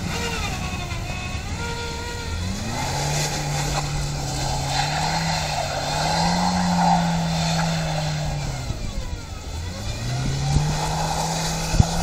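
Nissan Note's engine revving as the car slides in loops on snow, its pitch climbing, holding, dropping and climbing again. A hiss of tyres churning through snow comes in about halfway through.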